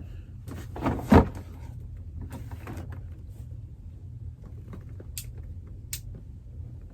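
Handling noises from the unboxing: scuffling, a sharp knock about a second in, and two light clicks near the end, over a low steady hum.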